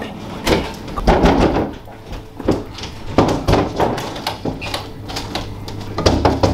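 A closed door being banged and shoved at by people trying to force it open: several heavy thumps at uneven intervals.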